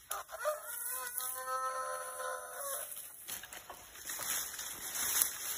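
A rooster crows once, a single long call lasting nearly three seconds, followed by the rustle of dry stalks being handled and bundled.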